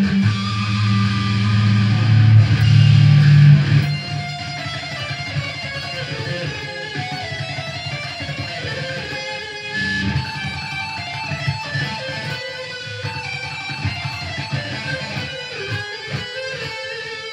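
Jackson SL4X Soloist electric guitar being played: loud held low chords for the first few seconds, then a run of single-note lead lines, settling on a held note near the end.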